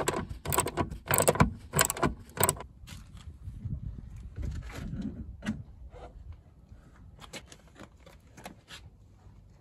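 Socket ratchet clicking as it undoes a car seat's runner bolt, a burst of clicks about every half second for the first two and a half seconds. Then quieter knocks and rustling as the seat is lifted out of the car.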